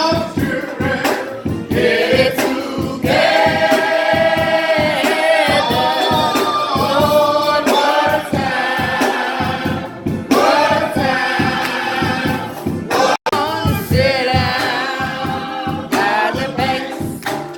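Gospel music: a choir singing, with a brief break about 13 seconds in.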